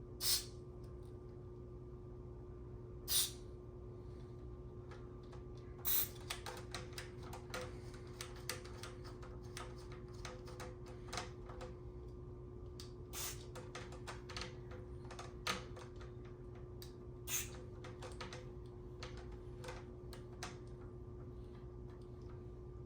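Short hissing bursts of DeoxIT contact-cleaner spray, about six spread through the stretch, among many small clicks and ticks as the receiver's knobs and switches are worked. A steady low hum runs underneath.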